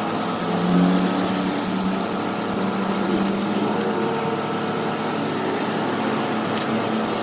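A workshop machine running steadily, a constant motor hum with a hissing edge to it.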